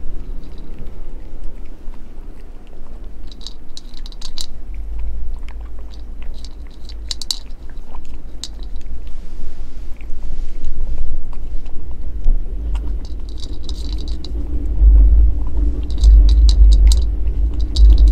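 A cat crunching dry kibble from a bowl, in bursts of crisp crunches every few seconds. A low rumble runs underneath and grows louder in the second half.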